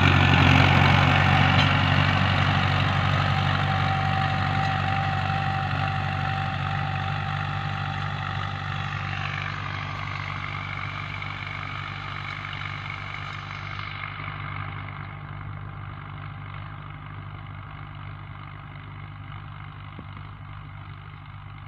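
Mahindra Arjun tractor's diesel engine running steadily as it pulls a plough, loud at first and then fading as the tractor moves away.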